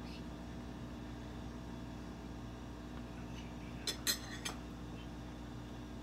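Kitchenware clinking in a quick cluster of a few sharp clinks about four seconds in, over a steady low hum.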